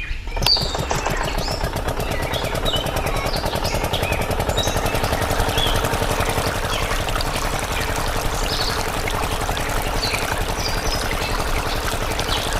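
A small engine running steadily with a fast, even chugging pulse, with short high chirps scattered over it.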